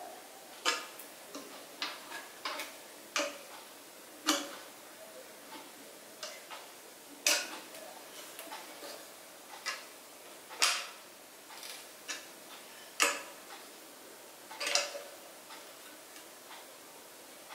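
Irregular sharp clicks and taps from the smaller bongo, a few louder ones every couple of seconds, as its metal tuning lugs are turned with a tool and the drum is tapped to check its pitch while tightening the skin head.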